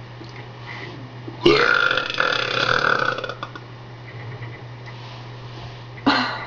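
A long, loud, deliberately forced burp starts about a second and a half in and lasts nearly two seconds. A short second sound follows near the end.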